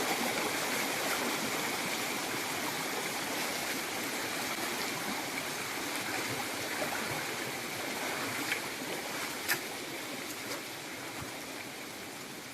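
Steady rain falling, a continuous even hiss with a few sharper drip-like ticks, easing slightly toward the end.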